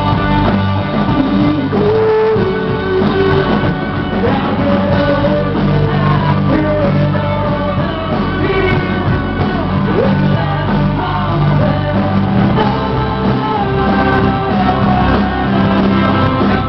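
Live rock band playing, with a male lead singer over electric guitars and drums.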